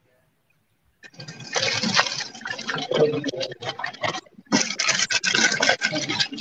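Flat filled pastries frying in a pan of olive oil, the oil sizzling and crackling. It starts about a second in.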